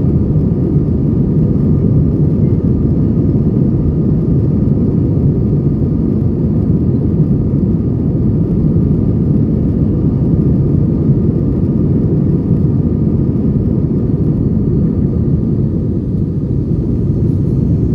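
Steady low rumble of jet engines and rushing airflow inside the cabin of an Airbus A320-family airliner climbing after takeoff, with a faint steady whine over it.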